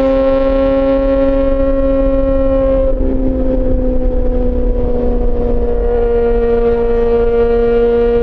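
Yamaha XJ6 S's inline-four engine, fitted with an SC-Project aftermarket exhaust, under way at steady revs with a sustained, high-pitched note that eases slightly lower a few seconds in and then holds. Low wind rumble runs underneath.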